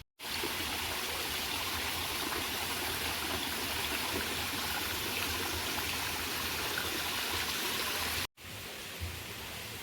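Steady rushing of flowing water, an even noise without rhythm or tone; it breaks off for an instant just after eight seconds and comes back quieter.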